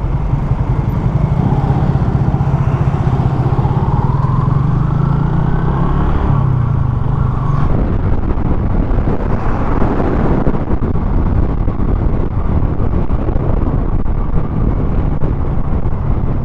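A vehicle under way, its engine and road noise running steadily. For the first few seconds the engine note rises as it speeds up, then it settles into a rougher rumble.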